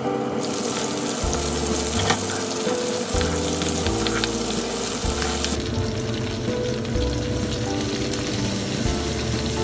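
Chicken pieces, green onions and garlic sizzling as they fry in a pan, with a few light clicks, over soft background music.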